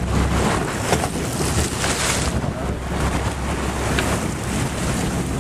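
Wind buffeting the microphone over sea water sloshing and splashing against the side of a boat, with a couple of brief knocks.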